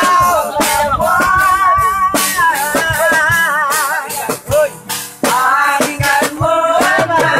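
Music: a voice singing long, wavering notes with heavy vibrato over a beat of regular drum hits and a shaker.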